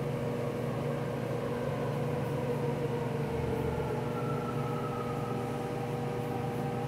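Steady hum of running machinery in a refrigeration machine room with chillers: a low drone carrying a few steady tones, with a fainter higher tone that drifts slightly down in pitch in the middle.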